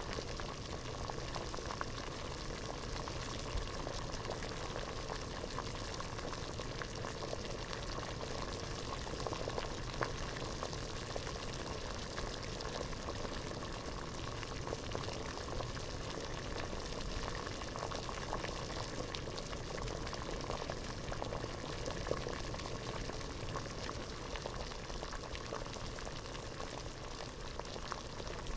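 Water at a rolling boil in a pot, a steady dense bubbling made of many small pops and ticks.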